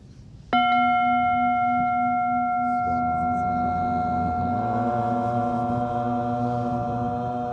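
Metal singing bowl struck once about half a second in, then ringing on steadily with several clear overtones that slowly fade.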